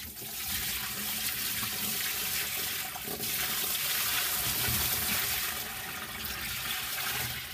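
Water pouring out of a tipped plastic bucket into a deep utility sink: a steady splashing gush that lasts the whole pour.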